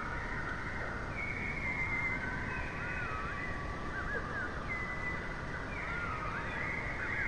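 Cockatiel whistling: a run of short warbled whistles with quick rising and falling glides, over a steady background hiss.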